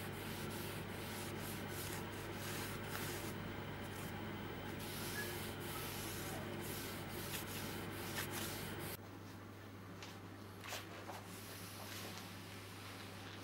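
A gloved hand rubbing a pad over a stained oak table leg, working in the finish: a steady scrubbing of pad on wood over a low hum. About nine seconds in it gives way suddenly to a quieter stretch with a few faint clicks.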